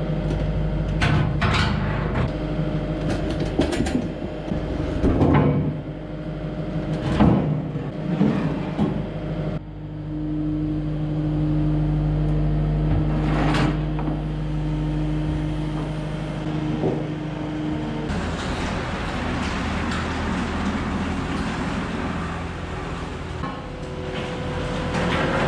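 A machine engine running with a steady drone, plus a stronger steady hum from about ten to eighteen seconds in. Sharp metal clanks and knocks come now and then as heavy loader brackets and parts are handled.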